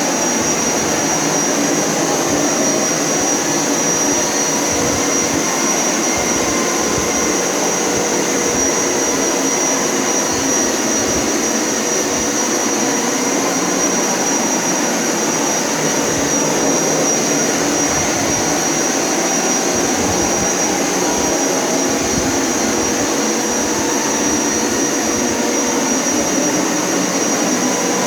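Motor of a Hoover upright floor cleaner running steadily, with a constant high whine over the rushing of its suction.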